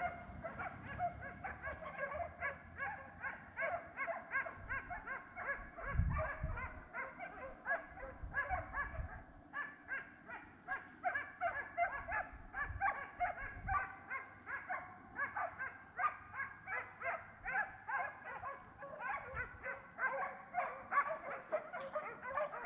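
A pack of hunting dogs baying and yelping over one another without pause during a wild boar hunt, several short calls a second, with a few low thumps about six seconds in.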